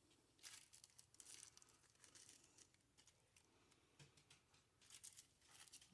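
Faint crinkling and tearing of tissue paper being handled, a scatter of soft crackles.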